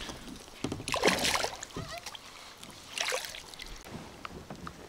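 Water splashing beside a kayak as a hooked bass is landed by hand and lifted from the water: two splashes, one about a second in and a shorter one about three seconds in.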